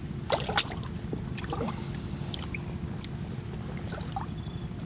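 Shallow seawater splashing and sloshing in a tide pool, with short splashes about half a second in and again about a second and a half in, over a steady low rumble.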